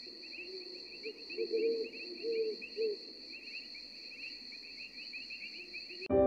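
Crickets chirping steadily in a forest ambience, with a few low warbling calls between about one and a half and three seconds in. The ambience cuts off abruptly near the end as piano music starts.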